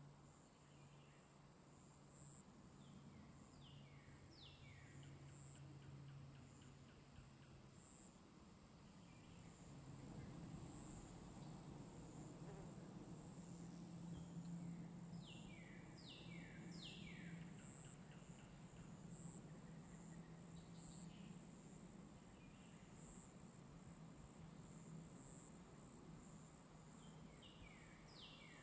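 Faint outdoor ambience: a steady high-pitched insect trill with regular pulses, and a bird singing short phrases of three or four quick descending notes, three times. A low steady hum lies underneath.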